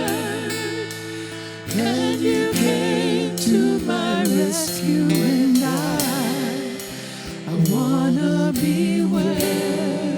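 Contemporary worship music: a singer's voice with vibrato over sustained keyboard chords and a light drum beat.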